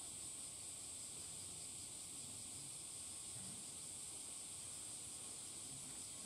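Faint, steady high-pitched insect chorus, an unbroken hiss with no distinct calls or knocks.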